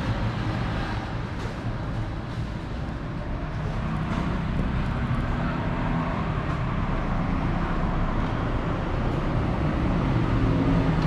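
Steady road-traffic noise with the low hum of passing engines, louder near the start and again near the end, with a few faint clicks.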